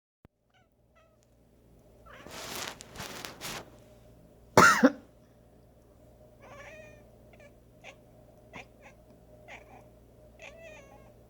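A person coughs a few times, then a cat answers with one loud meow, followed by a string of short, quieter meows: the cat reacting to, and fussing at, the coughing.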